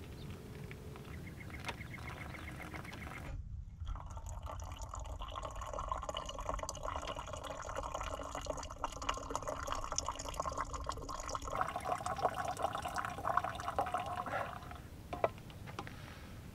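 Hot water poured from a camp pot into a pour-over coffee dripper, trickling and dripping through the grounds into the mug below.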